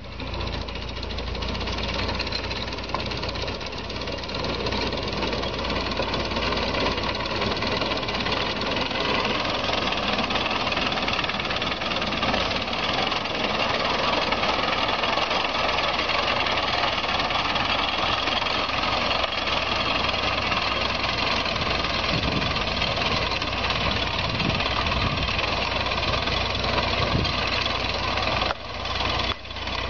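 Mechanical reaper running, making a steady engine-like machine noise that dips briefly twice near the end.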